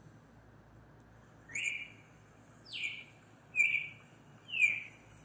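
Four short bird-like chirps, a little under a second apart, each sliding down in pitch, standing for the little bird's song.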